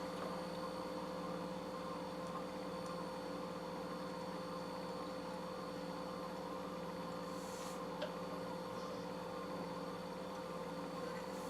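Steady electrical hum over faint room noise, with one small click about eight seconds in.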